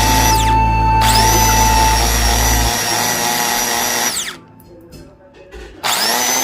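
RotoRazer compact circular saw's small electric motor triggered on and off with a high whine. It winds down about half a second in, spins back up about a second in, winds down again around four seconds, and spins up once more near six seconds.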